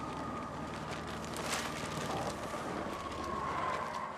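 Steady engine and road noise of a moving bus heard from inside, with a low hum and a few faint knocks.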